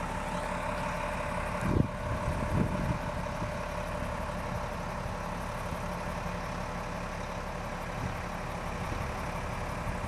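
Diesel engine of a heavy Volvo log truck running steadily as it pulls loaded log trailers slowly forward, with a couple of short knocks about two seconds in.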